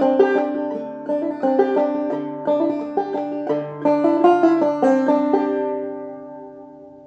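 Five-string banjo played clawhammer style: a quick run of plucked notes, then a final chord left ringing and fading out over the last couple of seconds as the tune ends.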